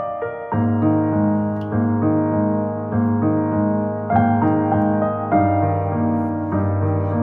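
Background piano music: a slow, gentle piece of held chords over a low bass note.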